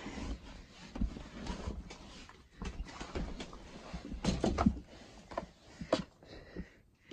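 A dog moving about and rummaging among paper and bags: scattered knocks and rustles, busiest about four to five seconds in.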